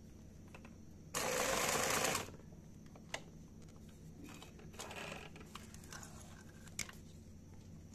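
Brother Pacesetter sewing machine running in one short burst of about a second, stitching a buttonhole. It is followed by a few faint clicks and handling noise as the fabric is worked out from under the presser foot.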